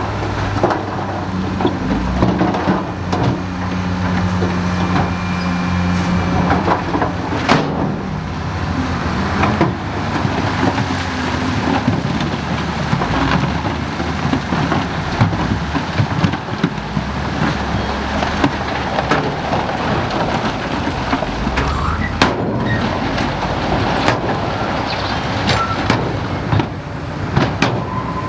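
Heavy earthmoving machine's diesel engine running under load with a steady low drone whose pitch shifts now and then, over a rumble of gravel and clattering steel. Sharp knocks stand out, one about seven seconds in and another a little past twenty seconds.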